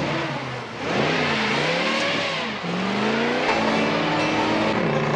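Car engine revving hard, its pitch swinging up and down several times, then settling into a steadier high-revving run about three and a half seconds in.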